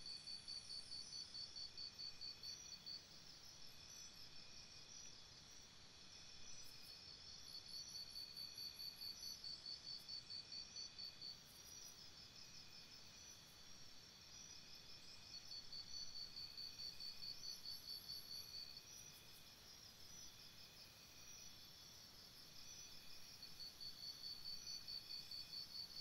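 Faint chorus of cricket-like insects. A high chirp pulses rapidly in trains of about three seconds, coming back every seven or eight seconds over steadier, fainter chirping and a soft even hiss.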